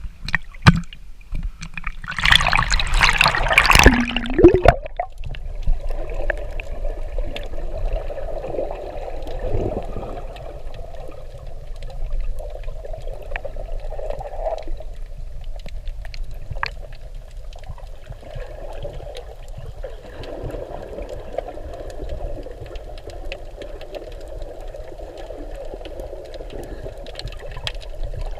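Splashing and bubbling as a camera goes underwater, loudest about two to four seconds in, then steady muffled underwater water noise with faint scattered clicks.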